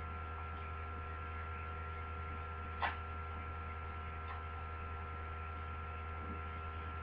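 Steady electrical mains hum picked up by a webcam's recording, with one short click about three seconds in.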